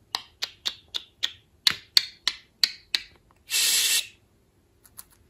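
Budgerigar making a quick run of about ten sharp clicks, roughly three a second, then a short raspy hiss lasting about half a second.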